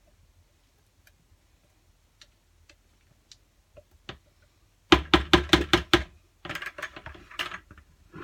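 Handling noise from soapmaking gear, the mixing bucket and utensils being moved: faint scattered ticks, then about five seconds in a quick run of about seven sharp knocks, followed by irregular rattling and clattering.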